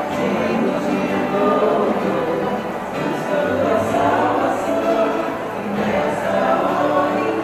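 A choir singing with musical accompaniment, steady throughout.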